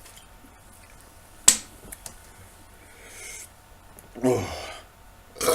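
Mouth and eating noises from a man working through a bowl of raw button mushrooms: a sharp click about one and a half seconds in, then a short low throaty sound about four seconds in, and a burp beginning at the very end.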